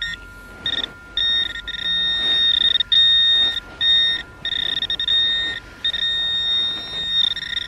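Metal detector target tone: a steady high beep that sounds again and again in stretches of half a second to over a second, cutting in and out as the coil or probe passes over a buried bit of metal, here a bottle top.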